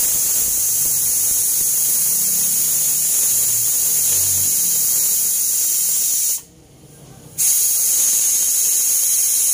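Steam hissing steadily out of a Standard pressure cooker's weighted valve, held up by hand to release the pressure after cooking. The hiss cuts off for about a second some six seconds in, then starts again.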